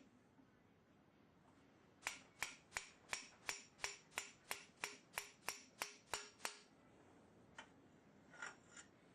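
Light taps of a hammer on steel tubing, about three a second for several seconds, each leaving a brief metallic ring, then a few fainter taps near the end, as the tube is knocked together over the joining slug.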